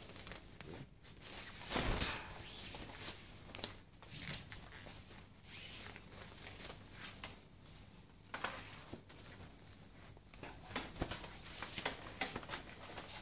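Rustling and handling of a pop-up toilet tent's nylon fabric as it is worked and folded, with scattered knocks and a louder rustle about two seconds in.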